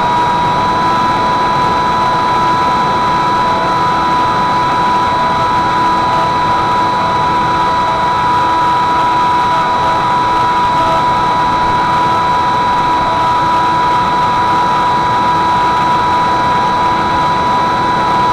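Brushless X-Foot 2207 2600kv pusher motor and propeller of an S800 Reptile FPV flying wing running at steady cruise throttle: a high, even whine that holds one pitch, over the rush of wind.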